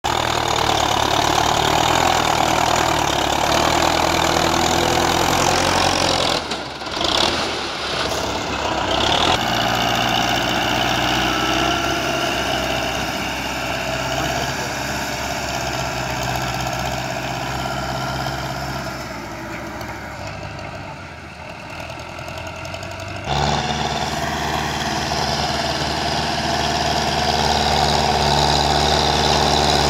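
Belarus 510 tractor's diesel engine running hard while the tractor is stuck in sand, at a steady pitch. The sound jumps abruptly a few times and is briefly quieter about two-thirds of the way through.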